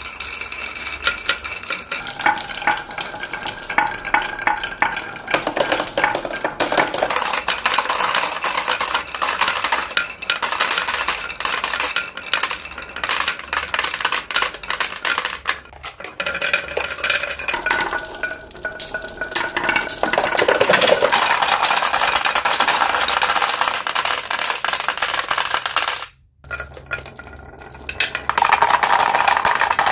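Glass marbles rolling and rattling down grooved wooden wave-slope tracks, with continual clicks as they knock against each other and the wood. After a brief gap near the end, a louder, denser clatter comes as the marbles drop into a plastic toy dump truck's bed.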